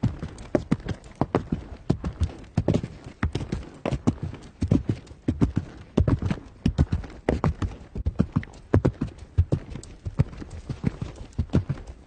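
Horse hooves galloping, a continuous run of sharp strikes falling in quick clusters of three or four, several per second.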